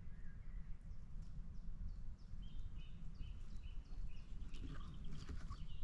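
Small birds singing in a pine forest at dusk: a run of short, repeated high notes, about three a second, with a denser flurry of calls near the end, over a steady low rumble.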